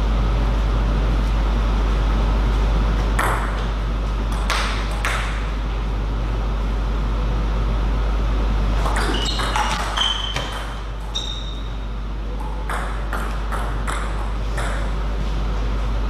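Table tennis ball clicking sharply off bats and table: a few single hits about three to five seconds in, a quick run of hits in a rally around nine to eleven seconds, and more scattered clicks after. A steady low hum runs underneath.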